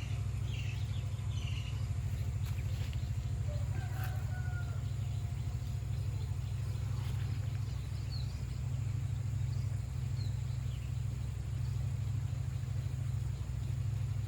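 A steady low hum, with faint bird chirps now and then.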